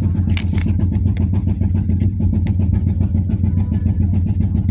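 Steady low droning hum of a running motor, with a couple of faint clicks about half a second in.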